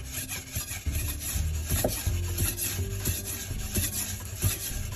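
A steel kitchen knife blade rubbed back and forth on a wet whetstone, with repeated gritty scraping strokes during sharpening.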